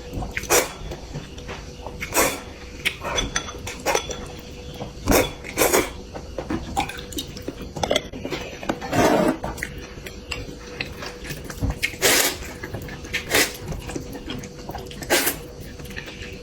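Close-miked eating: chewing and mouth sounds with irregular clinks of cutlery against a dish, over a faint steady hum.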